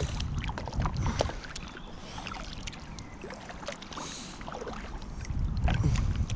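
Paddling on a paddleboard: irregular small splashes and knocks of the paddle in the water. Underneath is a low rumble that grows louder near the end.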